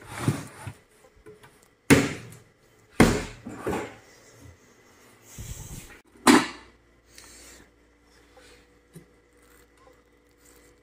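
Kitchen things being handled: a plastic basket of onions pulled out of a wooden cabinet and a metal kettle lifted off the gas stove. This makes about five sharp knocks and clatters in the first seven seconds, then quieter handling.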